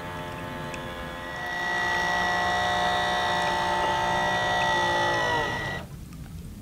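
Electric motor and propeller of an RC model fishing boat (Aquacraft Bristol Trawler) whining steadily under way, growing louder about a second in as the boat nears, then winding down in pitch as the throttle is cut near the end.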